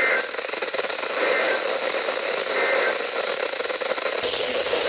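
Emergency Alert System end-of-message data bursts: three short two-tone digital chirps about 1.3 seconds apart, over steady radio static. They signal the end of the alert message. Near the end the static shifts in tone.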